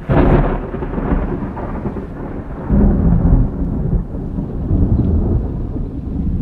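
Thunder rumbling. It starts suddenly, dies down into a long low rumble, and swells again about three seconds in.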